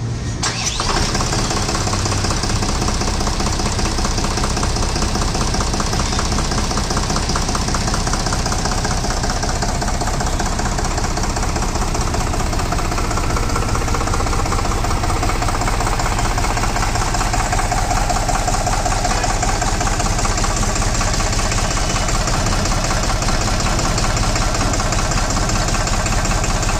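Three-cylinder, 3-litre turbocharged diesel engine of a Deutz-Fahr Agrolux 70 tractor running steadily with a diesel clatter.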